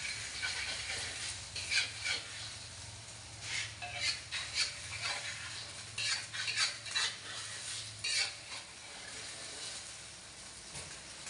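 Metal spatula scraping and tapping against a metal wok while an egg omelette fries with a steady sizzle. The scrapes come in short bunches and thin out near the end.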